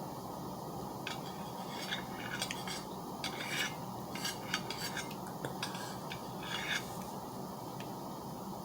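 Cutlery clinking and scraping against a plate or bowl: a run of light clicks and short scrapes from about a second in until near the end, over a steady background hum.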